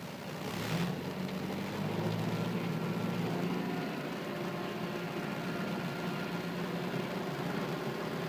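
Kubota M7840 tractor's diesel engine revving up over the first couple of seconds to a steady high speed of about 2,000 rpm, with the slasher spinning on the PTO, heard from inside the cab.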